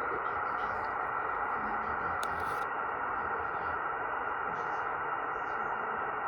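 Shortwave receiver tuned to 11.389 MHz, putting out a steady rushing, noise-like signal that is dubbed 'snoring' and not identified. Its level holds even throughout, with no breaks.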